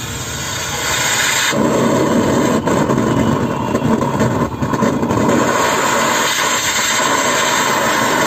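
Homemade gas torch's jet of gas hissing steadily while the flame burns, louder from about one and a half seconds in.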